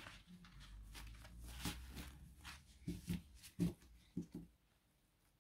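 A deck of cards handled and shuffled in the hands: soft rustling with a handful of light taps and flicks, most of them between about three and four and a half seconds in.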